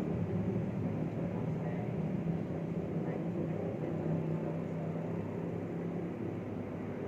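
Low, steady rumble of road traffic from a nearby main road, with engine hum from passing vehicles that slowly fades.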